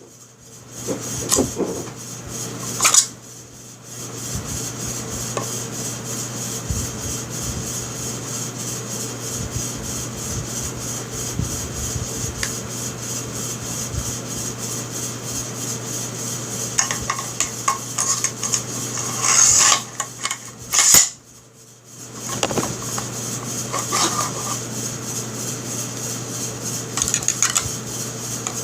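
Metal parts of a Stevens 320 pump shotgun being handled: scattered clicks, scrapes and knocks as the slide and bolt are fitted back onto the receiver, with sharper knocks about three seconds in and again near two-thirds of the way through. A steady low hum runs underneath.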